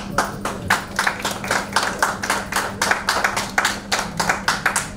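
A small group of people clapping, quick uneven claps overlapping, over a steady low hum.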